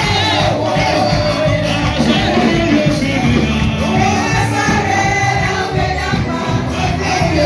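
Loud church praise music with singing and a steady beat, with the congregation shouting and cheering over it.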